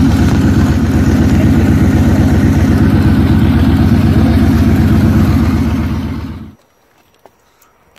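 Yamaha Road Star Warrior 1700's air-cooled V-twin idling steadily with an even pulsing beat. It cuts off about six and a half seconds in, leaving near silence with a few faint clicks.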